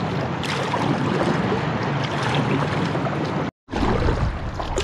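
Outboard motorboat running past, heard over a steady rush of wind and water. The sound cuts out for a moment about three and a half seconds in.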